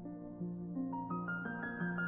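Background music: a gentle keyboard melody of held notes, with a run of notes stepping higher about a second in.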